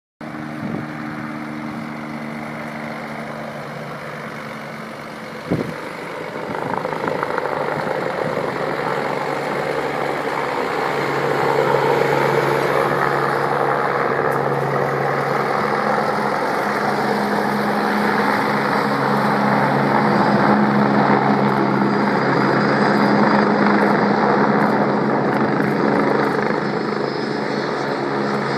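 Agusta A109 twin-turbine helicopter running, its engine and rotor sound a steady drone that grows louder from about six seconds in and then holds. A single sharp knock about five and a half seconds in.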